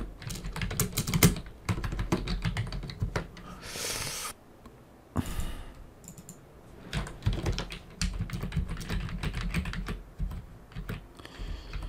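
Computer keyboard typing in quick, uneven runs of keystrokes, with a short pause and two brief soft rushes of noise near the middle.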